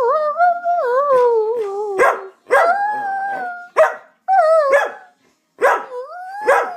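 Samoyed dog 'talking': wavering, sliding woo-woo howls mixed with about six sharp barks, some running straight on into a held howl. Demand barking for treats.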